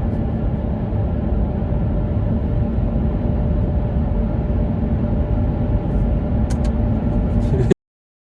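Steady low rumble of a moving vehicle with a constant engine hum and a few faint clicks. It cuts off suddenly about a second before the end.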